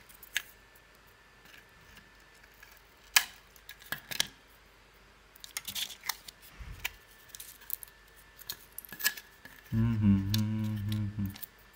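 Small clicks and taps of stiff card 3D-puzzle pieces being handled and pushed together, scattered and irregular. Near the end comes a low steady hum lasting over a second.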